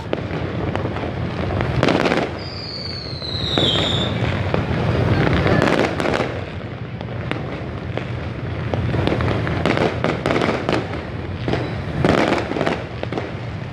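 Fireworks going off overhead: a dense run of sharp bangs and crackles, with a high falling whistle about two and a half seconds in.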